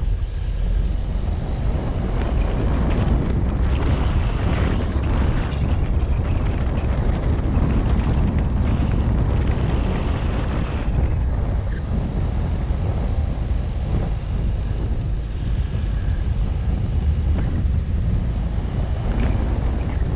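Car driving along a rough, patched asphalt road: steady low road and tyre noise from the moving vehicle, with wind buffeting the camera's microphone.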